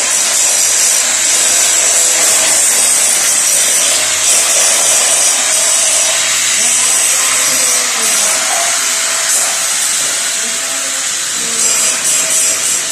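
Angle grinder running continuously on metal at the gate post, a steady loud grinding hiss that wavers a little near the end.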